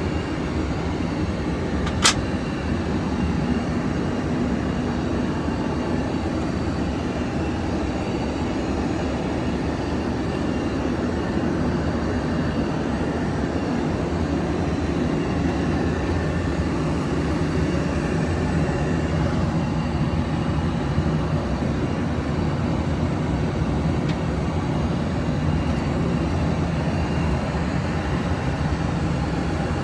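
Steady in-flight drone of a Boeing 737-800 heard inside its lavatory: engine and airflow noise, with one sharp click about two seconds in.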